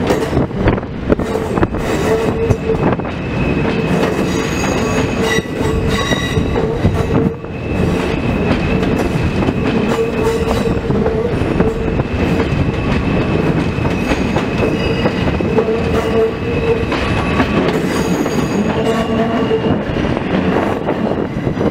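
New York City subway train of R160 cars rolling along the platform: a steady rumble of wheels on rail with scattered clacks and a thin, high, steady squeal over it.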